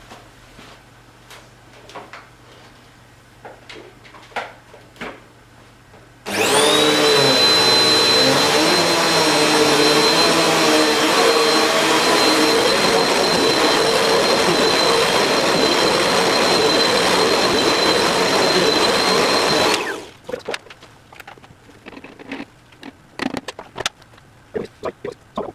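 Vacuum cleaner switched on about six seconds in: the motor whine rises quickly to a steady high pitch and runs for about thirteen seconds as it sucks up leftover sawdust from carpet, then is switched off. Soft clicks and knocks of handling before and after.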